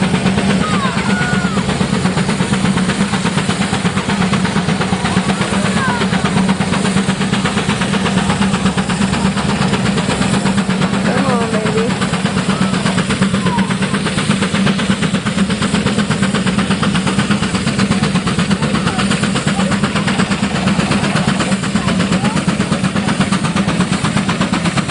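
Case steam traction engine working hard under heavy load, its exhaust beating in a rapid, steady, even chuff with a strong low drone. A few short rising and falling calls are heard over it near the start and around the middle.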